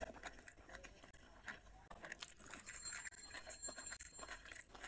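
Fingers mixing rice with curry on a plate, making an irregular run of small wet clicks and smacks.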